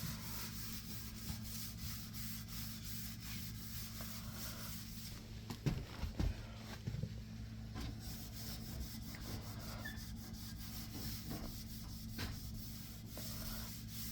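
Microfiber cloth with Bar Keepers Friend cleanser paste being scrubbed back and forth over a stainless steel stove panel: a steady rubbing, with a few knocks about six seconds in and a low hum underneath.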